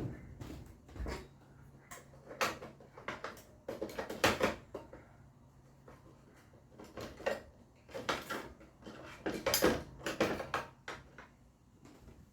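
Irregular knocks and clatter of tools and parts being handled, a dozen or so separate bumps with short quiet gaps between them.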